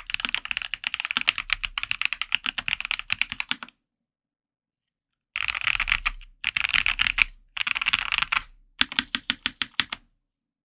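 Fast typing on a custom mechanical keyboard with lubed Gateron Oil King linear switches in a polycarbonate plate, Hammerworks keycaps. Steady rapid keystrokes stop about four seconds in, then after a pause come back as four short quick bursts before stopping near the end.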